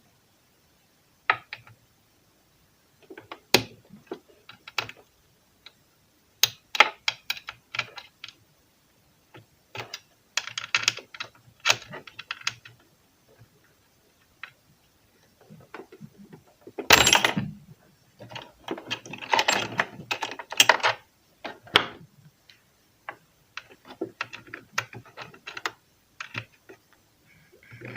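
A screwdriver working out two screws on a domestic sewing machine: clusters of small metallic clicks and scrapes, with a louder clatter about seventeen seconds in.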